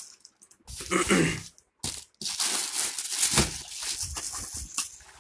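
Plastic bag wrapping a small home-theatre satellite speaker crinkling and rustling as the speaker is handled and lifted out of a polystyrene packing tray. A short burst of rustling comes about a second in, then continuous crackly rustling from about two seconds in.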